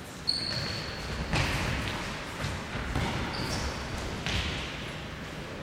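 Futsal ball being kicked and bouncing on a wooden sports-hall floor, sharp thuds ringing around a large hall, with two brief high squeaks.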